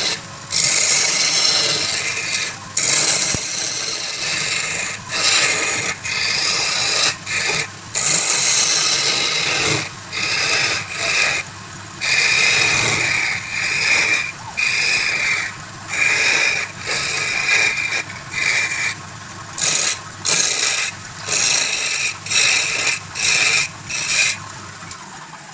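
Wood turning on a lathe with a tool scraping it in repeated short passes, about one a second with brief gaps between. Many of the passes carry a high whine.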